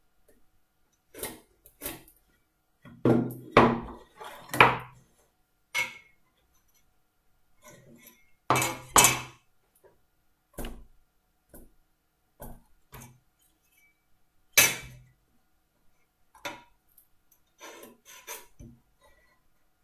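Irregular knocks and clicks of marking-out tools and a length of wood being handled and set down on a workbench. The loudest come in a cluster about three to five seconds in.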